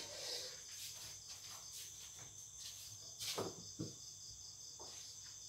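Crickets chirping in a steady, evenly pulsing trill. Two dull knocks come about three and a half seconds in.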